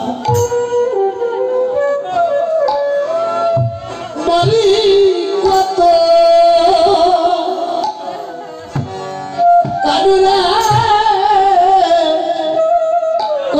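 Bengali lila kirtan music: a wavering keyboard melody with khol drum strokes.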